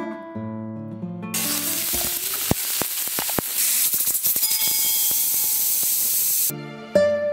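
Pressure cooker venting steam through its weighted valve: a steady hiss that starts about a second in, with a few clicks early in it, and stops shortly before guitar music returns near the end.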